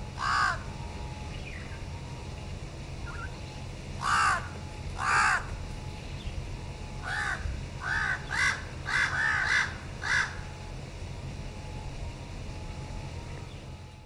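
A crow cawing: one harsh caw, then two caws about a second apart, then a quicker run of six caws roughly half a second apart, over a steady low background rumble.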